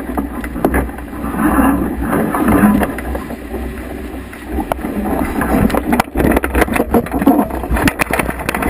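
Water rushing and splashing past a Laser Vago dinghy's hull as it sails fast in a strong gust, with wind buffeting the camera's microphone and frequent sharp splashes of spray, thickest in the second half.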